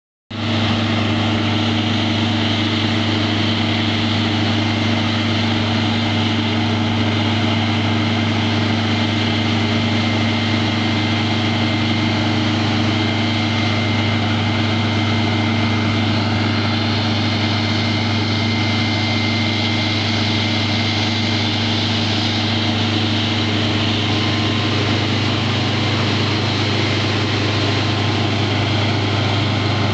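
E-One Aerialcat ladder truck's diesel engine running steadily to drive its fire pump during a pump test, with the rush of water jetting from a portable monitor.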